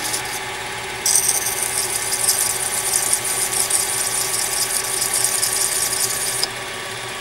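A carbide shear-scraper cutter's face being ground on a medium-grit diamond-coated cutoff wheel spinning on a lathe: a steady high grinding hiss starts about a second in and stops abruptly near the end, over the lathe's steady running hum.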